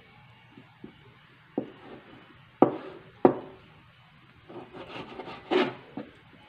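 Kitchen knife cutting raw pork on a cutting board: a few sharp knocks of the blade striking the board, two of them close together near the middle, then a spell of scraping and knocking near the end.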